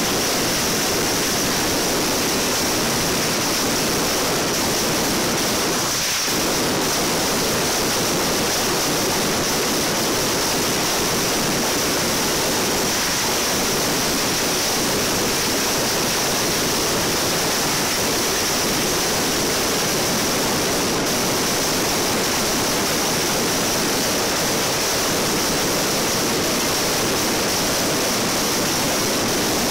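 Dense, unbroken crackle of ground firecrackers from a hand-lit mascletà, so many going off at once that they blend into one steady noise.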